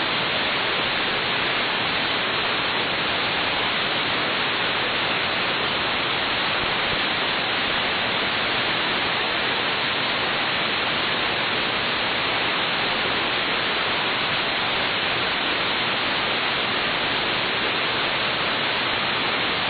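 Steady, loud radio static hiss from the aircraft's radio feed in the gap between air traffic control transmissions, with no one keyed up on frequency.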